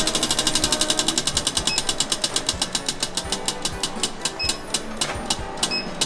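Prize wheel spinning, its pegs flicking past the flapper in a fast run of clicks that slows steadily as the wheel winds down, with the last few ticks coming about a second apart before it stops.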